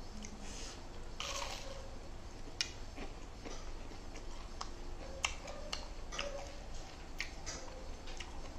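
Close-miked eating sounds: a person chewing, with irregular wet mouth clicks and smacks about once a second and a brief louder smack about a second in.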